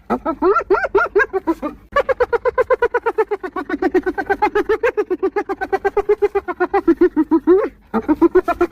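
Spotted hyena giggling: fast runs of short, high yelping notes in bouts, the longest lasting about six seconds.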